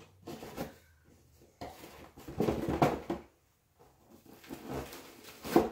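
Objects being shifted around on a work table: a string of knocks, scrapes and rustling, loudest about two to three seconds in, with a sharp knock near the end.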